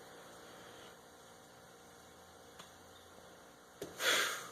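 Quiet room with a steady low electrical hum and a couple of faint clicks. About four seconds in, a short hissy burst of noise lasting about half a second.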